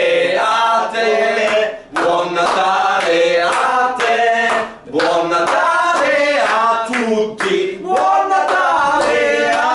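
Several men singing together, with held notes and brief breaks between phrases.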